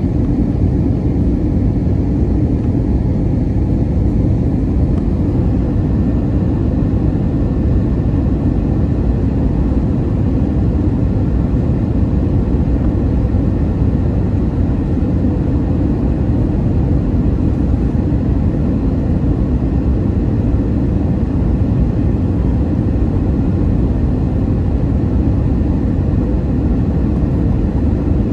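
Airliner cabin noise during descent on approach: a steady low drone of the jet engines and rushing air, unchanging throughout.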